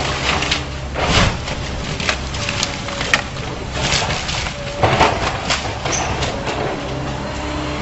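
Building demolition: heavy machinery's engine running steadily while wood and debris crack and crunch several times as the structure is torn down.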